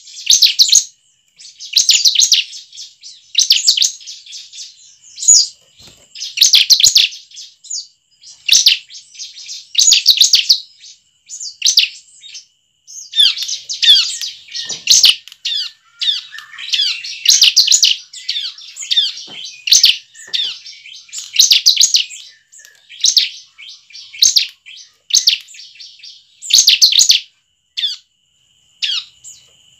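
Bar-winged prinia (ciblek) singing: short bursts of rapid, high chirps about every one and a half seconds, with a longer, busier run of chirping in the middle.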